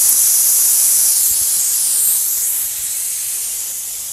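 Steam hissing steadily out of the pressure-release valve of an Afghan kazan pressure cooker as the leftover pressure is vented at the end of cooking. The hiss slowly weakens as the pressure drops.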